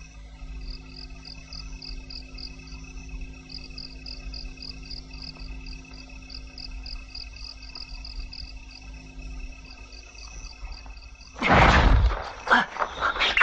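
Crickets chirping about four times a second over a low steady hum. About a second and a half before the end a sudden loud crash breaks in, followed by several more loud hits.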